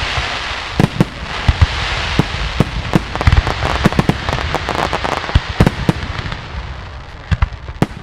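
Aerial firework shells bursting in a display: a rapid, irregular series of sharp bangs over a steady hiss, busiest around the middle and thinning toward the end.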